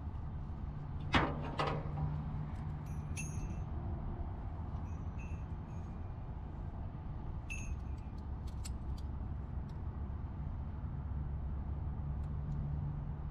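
Yellow nylon ratchet strap being handled and rolled up by hand: a sharp swish about a second in, then light metal clinks from the ratchet buckle around three seconds and again a few times near eight seconds. Underneath runs the steady low hum of an idling engine.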